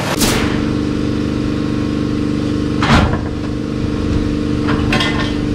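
A vehicle engine running at a steady note, with a few sharp knocks near the start, about midway and near the end.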